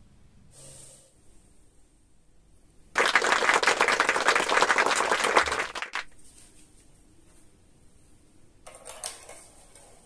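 Rapid, dense clattering of small hard plastic pieces for about three seconds, then a shorter rattle about nine seconds in.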